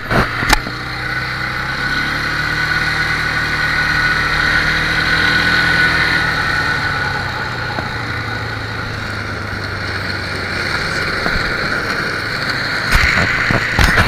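ATV engine running under way, its pitch climbing over the first few seconds and then easing off, with a steady high whine over it. A few sharp knocks near the start and again near the end.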